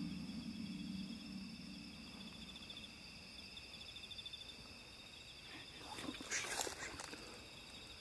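Steady high-pitched trilling chorus of night insects, with a low hum fading away over the first two seconds and a short burst of rustling about six seconds in.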